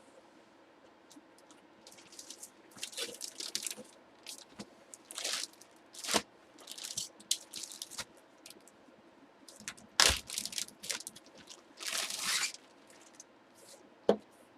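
Trading-card packaging being handled: plastic and card stock crinkling and rustling in short irregular bursts, with a sharp knock about ten seconds in.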